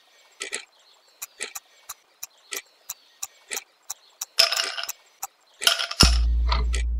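Countdown-timer sound effect: a clock ticking in quick, uneven clicks, about three a second, with a couple of short rattles. Near the end a loud, low buzzer sounds and holds, marking the time running out.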